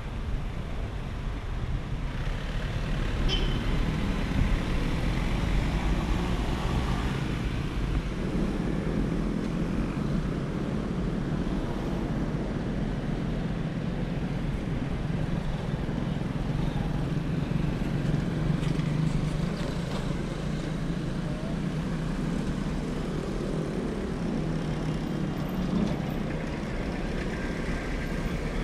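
Road traffic: cars, a van and motorcycles driving past on a city street, a steady mix of engine and tyre noise.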